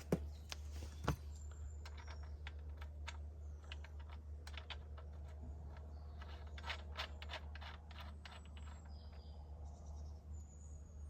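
Light metallic clicks and taps of the axle nut being run down and tightened over a torque arm on an e-bike hub motor's axle, coming in quick clusters about halfway through and again a couple of seconds later.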